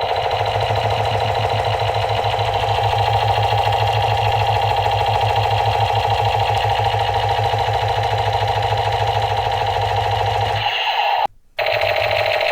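Battery-powered toy machine gun firing continuously with a fast, steady rattle. It stops briefly once near the end, then starts again.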